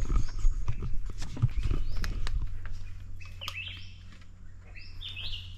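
Birds chirping in short, rising calls, most of them in the second half, over a few scattered knocks early on and a low steady hum.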